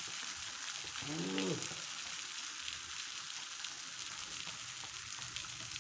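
Pomfret sizzling as it grills, a steady hiss with light crackles. A short voiced hum comes about a second in.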